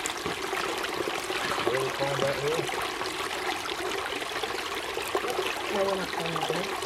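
Creek water running and babbling over rocks, a steady rushing trickle, with faint voices of other people underneath.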